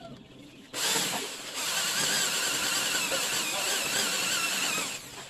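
Corded electric hand drill boring a hole through a thin wooden slat: the motor starts under a second in, runs with a whine that wavers with the load, and stops near the end.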